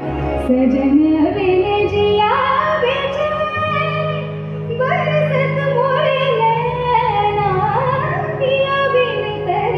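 A woman singing a Marathi song live through a microphone, her voice gliding through long, wavering phrases over sustained low accompanying notes that change a few times.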